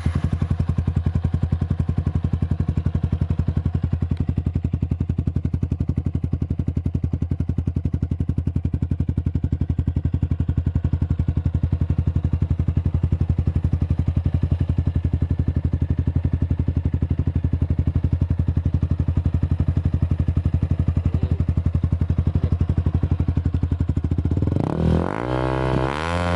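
Yamaha Sniper 155 VVA's single-cylinder engine idling steadily through a Villain GP1 non-carbon aftermarket exhaust canister, then revved up and down repeatedly near the end.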